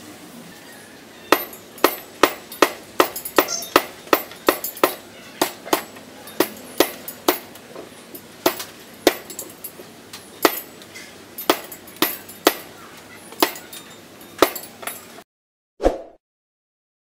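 Small steel axe blade, cut from an old saw blade, chopping green stalks down onto a wooden block: about thirty sharp chops, two or three a second, that stop about fifteen seconds in. A brief sound effect follows near the end.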